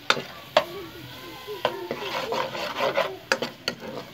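A steel spoon stirring and scraping sliced onions and ghee around a karahi, with several sharp clanks of the spoon against the pan.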